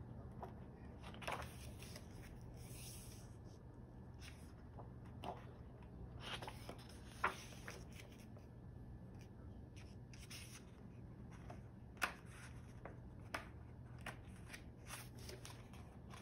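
Paper pages of a paperback photobook being handled and turned: soft rustling with scattered sharp paper ticks, the loudest about seven and twelve seconds in.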